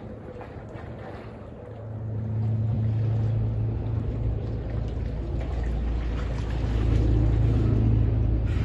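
A steady low mechanical hum comes in about two seconds in, over a faint wash of noise, and carries on without change.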